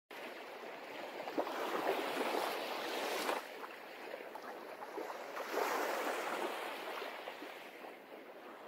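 Sea water washing and splashing in slow swells that rise and fall every few seconds, with some wind noise, fading toward the end.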